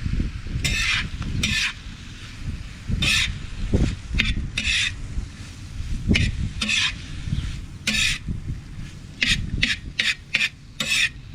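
A utensil stirring and scraping food across a hot metal saj in short, irregular strokes that come quicker near the end, with food sizzling underneath.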